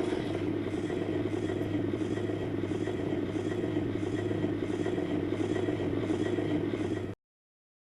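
A steady, low rumbling sound effect that stops abruptly about seven seconds in, leaving silence.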